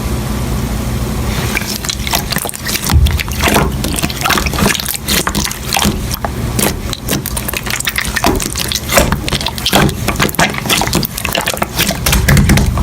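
Slime being squished and kneaded by hand, giving a dense, irregular run of wet clicks and pops.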